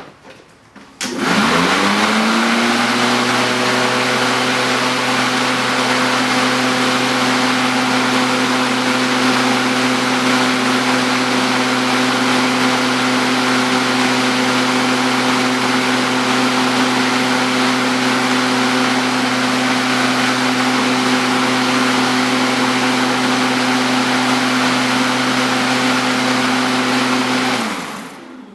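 Kobalt KM210 13-amp corded electric lawn mower switched on about a second in. Its motor and blade spin up quickly to a steady high hum with a loud rushing whoosh, run evenly, then are switched off and wind down near the end.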